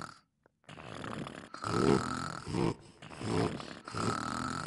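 Cartoon snoring sound effects: a run of snores and snorts, some ending in a high whistle.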